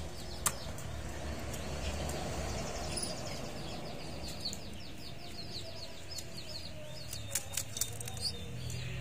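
Caged red canaries chirping in fast, high trills that come and go, over a steady low background noise. A few sharp taps sound about half a second in and again several times near the end.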